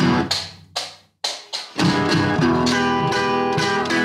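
Outro music: a few sharp struck notes that ring and fade, a brief gap about a second in, then steady, fuller playing from about two seconds in.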